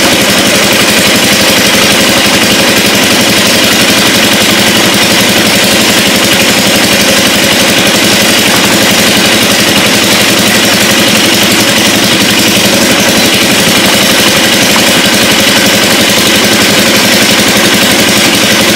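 A small boat's engine running steadily at a constant speed, with no change in pitch.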